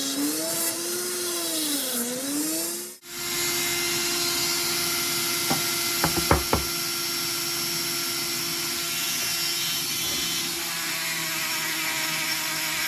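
Small electric power tool running, its pitch dipping and recovering as it takes load, then a brief drop-out and the motor running steadily on, with a few sharp clicks about six seconds in.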